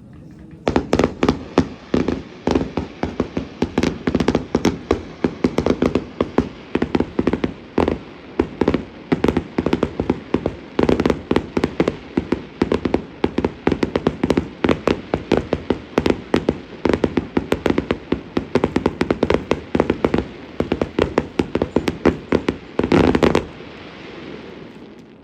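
A fireworks display: a rapid barrage of firework bursts, several sharp bangs a second. It starts about a second in, stops abruptly about two seconds before the end, and then fades out.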